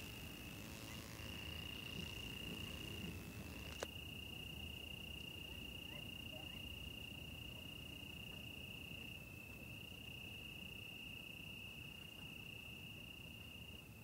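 Faint, continuous high-pitched insect trill, like a cricket, holding one pitch that steps slightly up or down now and then. A single sharp click comes about four seconds in.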